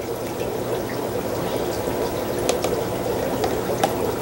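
Steady trickling, bubbling water from aquarium equipment, with a few light clicks of a metal spoon against plastic culture tubs.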